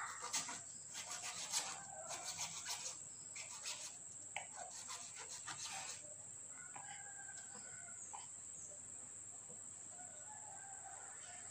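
Kitchen knife slicing banana stem onto a plastic cutting board: a quick run of light clicks and taps through the first six seconds or so. After that a few faint chicken calls.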